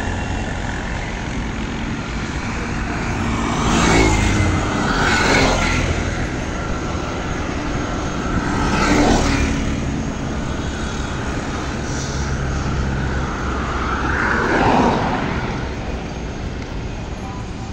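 Road traffic: vehicles pass close by one after another over a steady low noise, their sound swelling and fading four times.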